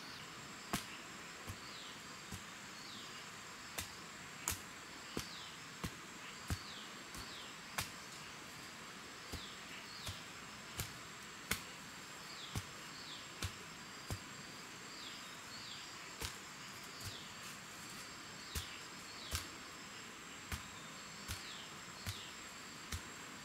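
A wooden pole jabbed repeatedly into the soil to sink a post hole, giving a sharp knock about every 0.7 s. A steady high insect drone and repeated short falling chirps go on behind it.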